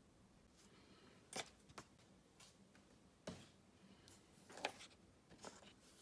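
About five short light clicks and taps of clear plastic dessert cups being handled, picked up and set down on a table.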